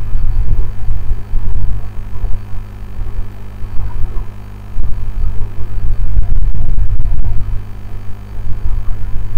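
Low electrical mains hum with an uneven, fluctuating low rumble beneath it.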